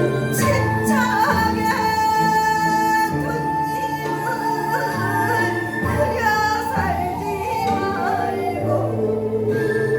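A woman singing a Korean folk song (minyo) in a traditional style, with long held notes and wide, wavering vibrato over instrumental accompaniment.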